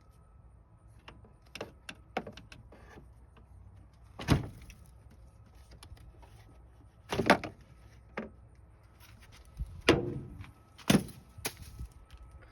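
Scattered knocks and clunks of car parts being handled during a radiator removal, with small clicks and rattles between them; four louder clunks come about three seconds apart.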